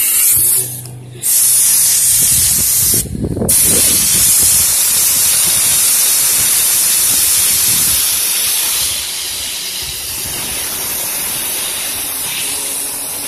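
Compressed-air blow gun hissing loudly as it blasts air onto a fidget spinner to spin it up. The air cuts off briefly twice in the first few seconds, then holds steady and eases a little after about eight seconds.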